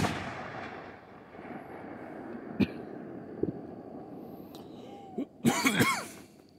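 A firework shell bursting overhead with one sharp, loud bang, its boom echoing and fading over about a second. A few faint knocks follow, then a louder, rough burst of noise near the end.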